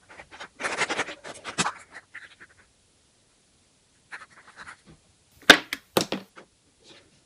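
Hard plastic surprise-egg capsule being handled and pulled open, with small plastic toy figures rattling inside: about two seconds of clicking and scraping, a pause, then two sharp plastic clicks about half a second apart near the end.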